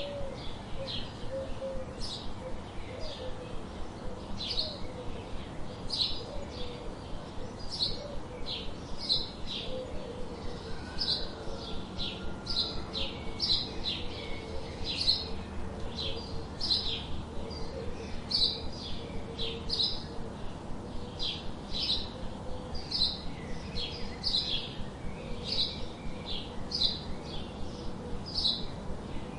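Small songbirds chirping: a steady run of short, high chirps, two or three a second.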